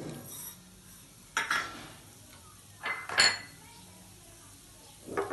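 A small steel bowl knocking and clinking against a pan several times as tempering seeds are tipped into hot oil, with a faint sizzle of the seeds frying between the knocks.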